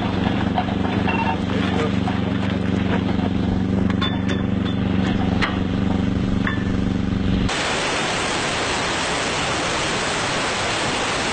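An engine running steadily at constant speed, with a few sharp clicks partway through. About two-thirds of the way in the sound cuts abruptly to an even rushing noise.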